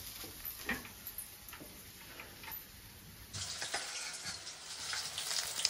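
Hot cooking oil in a kadai, faint at first with scattered small crackles. About three seconds in it turns into a louder, denser frying sizzle.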